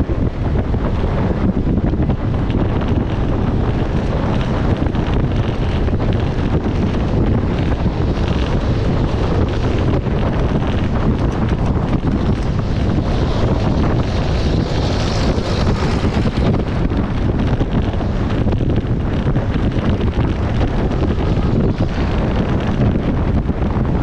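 Heavy wind buffeting the microphone of a camera on a moving motorbike: a loud, steady low rumble of wind noise. It swells briefly into a higher hiss a little past the middle.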